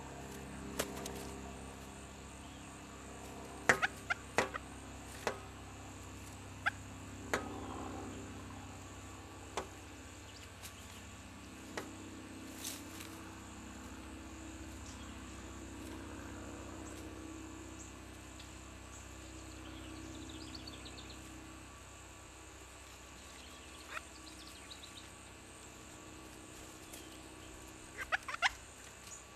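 Pileated woodpeckers pecking, giving scattered sharp taps and knocks at irregular intervals, with a quick run of taps around four seconds in and another burst near the end.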